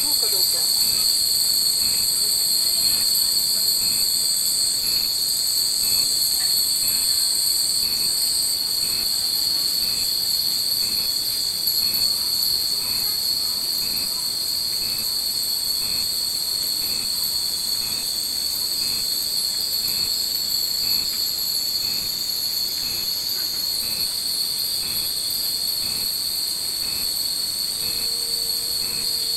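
Chorus of summer cicadas, a steady shrill drone, with hanging fūrin wind chimes tinkling in the breeze.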